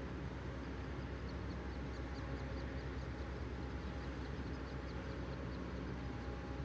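Steady low drone of a large container ship's engines across the harbour water, with a few constant hum tones. In the middle, for about three seconds, a run of high quick chirps, about four a second, rides over it.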